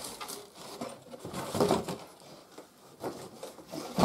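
Cardboard packing insert being pulled free of its box and the plastic wrapping around the vacuum cleaner: irregular rustling and scraping of cardboard and plastic, with a single thump near the end.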